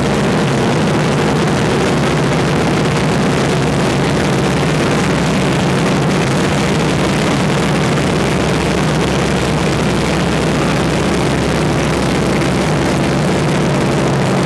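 North American T-6 Texan's Pratt & Whitney R-1340 Wasp radial engine and propeller droning steadily, heard from inside the cockpit. The engine note shifts slightly just after the start and again about two-thirds of the way through.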